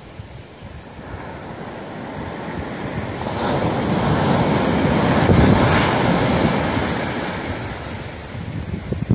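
Rough ocean surf: a wave breaks and its wash rushes up the sand, swelling to its loudest about four to six seconds in and then fading away. Wind buffets the microphone near the end.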